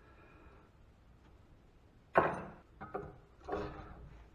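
Metal hand tools clanking as screwdrivers are handled and put down on the workbench: a sharp clank about two seconds in, then two smaller knocks, each with a brief ring.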